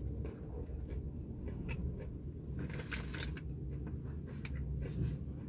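Quiet eating sounds: a mouthful of burger being chewed, and its paper wrapper crinkling a few times as the burger is set down on it, over a steady low hum.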